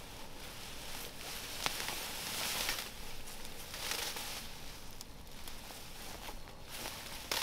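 Tall grass rustling and tearing as clumps are pulled up by the roots, in several bursts, with a sharp snap about a second and a half in and another near the end.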